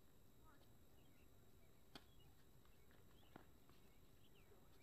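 Faint, sharp pops of tennis rackets hitting the ball, twice about a second and a half apart, with small birds chirping throughout.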